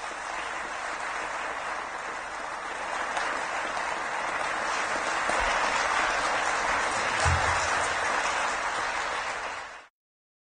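A large audience applauding steadily, growing a little louder midway, then cut off abruptly near the end.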